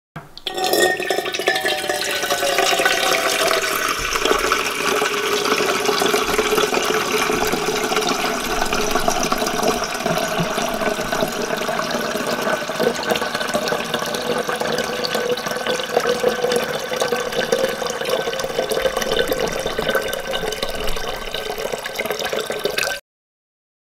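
Water running in a steady stream from the stainless spigot of an Alexapure gravity water filter into a stainless steel percolator pot, filling it. The sound cuts off suddenly near the end.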